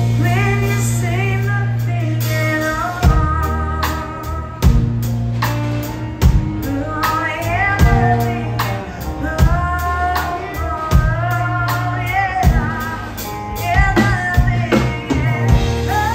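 Live female vocal of a slow country ballad, sung into a microphone over a band: guitar, bass and a drum kit striking a slow, even beat about every second and a half.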